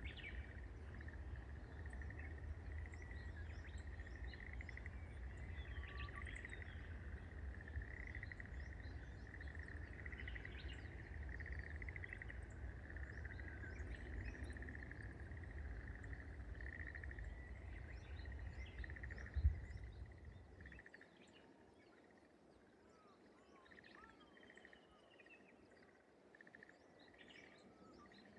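Rice-paddy morning ambience: a steady high-pitched pulsing chorus of calling creatures with scattered bird chirps and calls over it. A low rumble underlies it and stops about two-thirds of the way in, just after a single knock.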